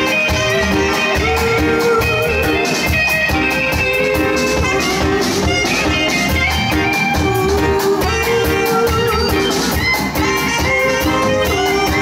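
Live band playing an upbeat, Latin-tinged groove: a saxophone playing long held notes over drum kit and electric guitar.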